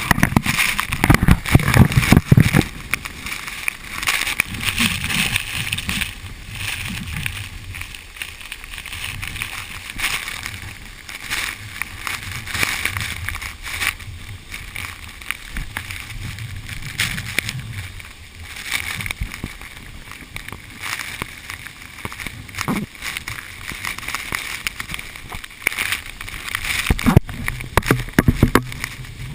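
Steady rushing of the 120 m Sipiso-piso waterfall, with gusts of wind buffeting the microphone in the first few seconds and again near the end.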